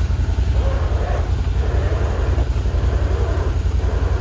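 Can-Am Defender side-by-side's engine idling steadily with a low, even rumble.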